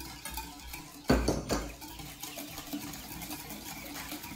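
A utensil stirring in a mixing bowl, clinking against its side, as warm milk is mixed into egg yolks and sugar for a vanilla custard. A quick run of louder knocks about a second in, then fainter stirring.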